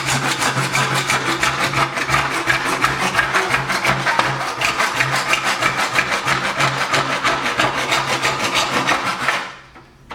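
Hand saw in a miter box cutting through an ABS plastic blast gate with quick, even back-and-forth strokes. The sawing stops about nine and a half seconds in as the cut finishes.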